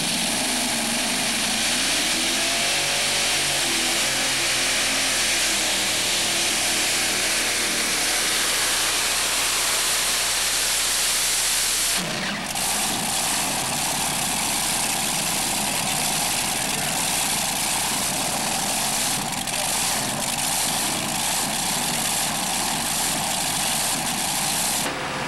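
Modified pulling tractor's several supercharged engines running hard at high revs, a loud, dense engine noise whose pitch wavers up and down. The sound changes abruptly about halfway through as the footage cuts, with the engines still running loud.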